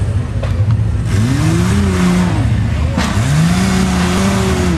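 Rock crawler buggy's engine revving hard twice, pitch rising and falling each time, over a steady low running note, with a sharp knock about three seconds in.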